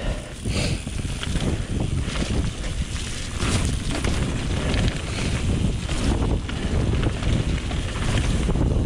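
Wind rushing over the microphone as a Vitus Sentier aluminium hardtail mountain bike rolls fast down a muddy dirt trail, with tyre noise and the bike rattling over bumps in many short knocks.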